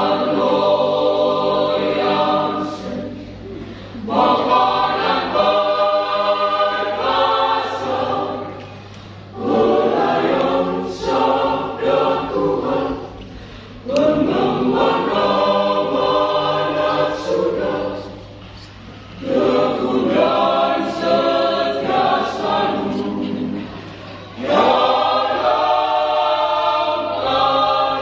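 Church choir singing a sacred song in phrases of a few seconds each, with short breaks between phrases.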